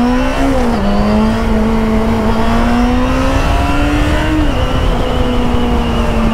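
Motorcycle engine pulling under throttle while riding, its pitch climbing, dropping back sharply about a second in, climbing slowly again and dropping once more near the middle before holding steady. A low wind rumble runs underneath.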